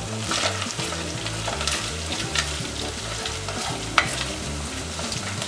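Sliced onions and whole spices frying in oil in a metal pot, sizzling steadily while a wooden spatula stirs them, with a few light knocks of the spatula on the pot and a sharper one about four seconds in.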